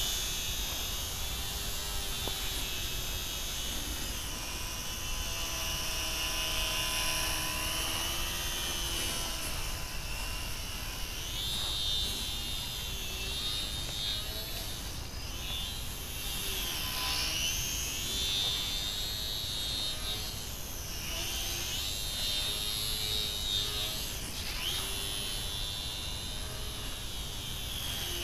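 Small electric motor and propeller of a micro RC plane, with the motor and prop taken from a Hobbyzone Champ, whining in flight. The pitch rises and falls again and again as it flies.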